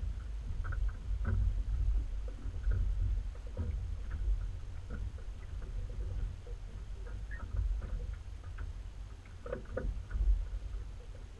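Low, uneven rumble of a Jabiru light aircraft's engine idling on the ground with the propeller turning, with scattered light rattles and clicks, a cluster of them about ten seconds in.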